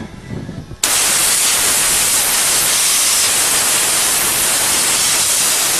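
Compressed-air blow gun hissing steadily, starting about a second in, as it blasts water out of the needle bearings of a front axle's inner CV joint before regreasing.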